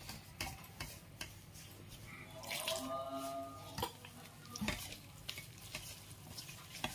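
A hand mixing gram flour with liquid into a thick batter in a stainless steel bowl: soft scraping and squishing, with scattered light clicks against the steel.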